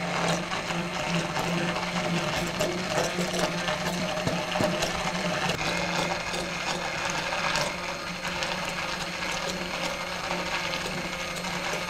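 Hand-held immersion blender running steadily, its motor humming at a constant pitch as the blade churns a thick peanut-butter sauce in a plastic beaker, with scattered clicks and splatter.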